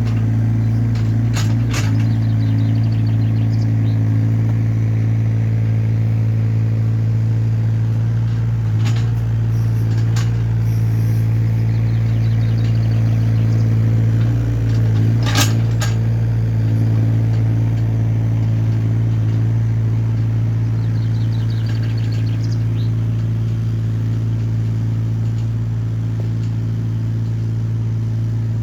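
Hyundai small excavator's diesel engine running steadily, with a few sharp metallic clanks from the machine at work, the loudest about halfway through.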